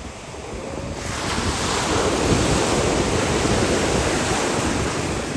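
Ocean surf washing in: a wave's rush swells about a second in and stays loud, with wind buffeting the microphone.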